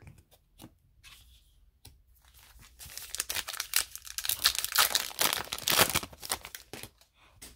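A few faint clicks, then a foil hockey card pack wrapper being torn open and crinkled: a dense crackling rustle lasting about four seconds.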